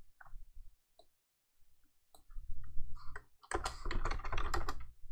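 Computer keyboard keystrokes and clicks: a few scattered taps, a short pause, then a quick run of keystrokes in the second half.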